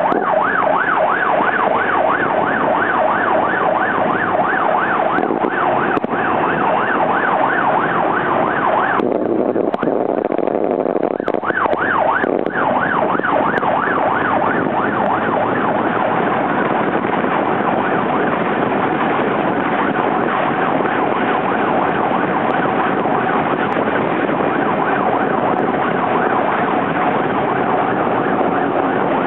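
Police car siren on a Subaru WRX patrol car sounding a fast rising-and-falling yelp, several sweeps a second. It breaks off for about two seconds near nine seconds in, then resumes. Under it runs steady wind and road noise from the following vehicle.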